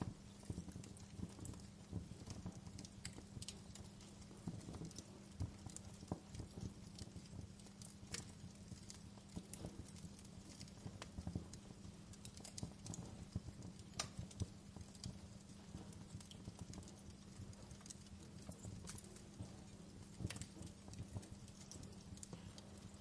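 Wood fire crackling in a fireplace: irregular snaps and pops, a few sharper than the rest, over a low rumble and a steady low hum.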